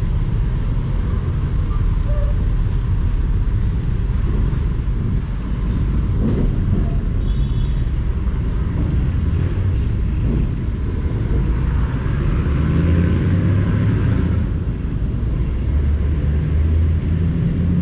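Honda motorcycle engine running at low speed with tyre and road noise, the rumble swelling a little about twelve seconds in.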